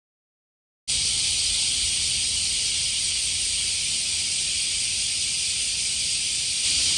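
Steady high-pitched outdoor hiss that starts abruptly about a second in, after a moment of silence.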